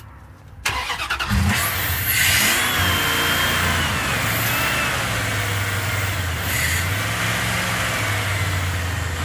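Dodge Ram 1500 pickup engine being cranked by the starter, catching about a second and a half in, revving up and then running steadily. This is the engine's first sustained run after sitting unstarted for two years.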